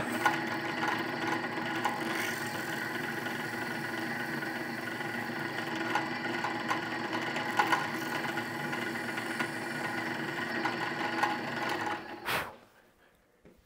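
A small electric motor runs at a steady speed for about twelve seconds, with a few faint clicks over it, then cuts off.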